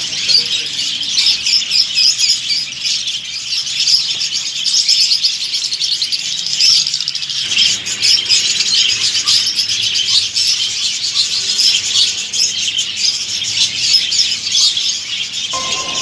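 Many caged budgerigars chirping and chattering together: a dense, continuous, high-pitched chorus.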